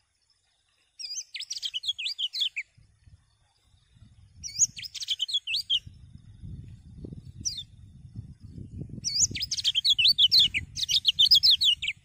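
Kecial kuning (yellow white-eye) cage bird singing fast twittering phrases of quick up-and-down whistled notes: two short bursts, a single note, then a longer burst near the end. A low rumble runs underneath from about a third of the way in.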